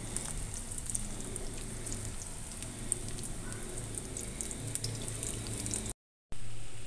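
Vegetable pakoras in gram-flour batter deep-frying in hot oil in a wok: a steady bubbling sizzle with many fine crackles. It drops out for a moment near the end.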